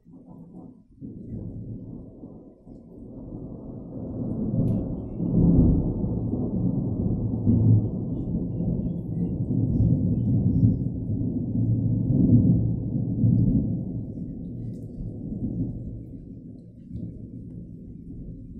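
Long rolling peal of thunder. It swells over a few seconds, rumbles at its loudest through the middle, and dies away near the end.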